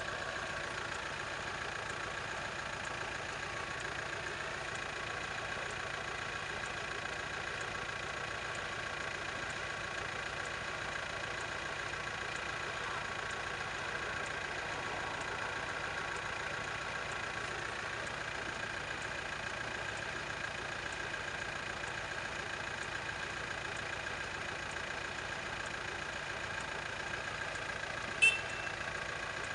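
Two SU42 diesel locomotives running in the distance as they approach with a passenger train: a steady engine drone. About 28 seconds in, a single brief, sharp, high-pitched sound stands out above it.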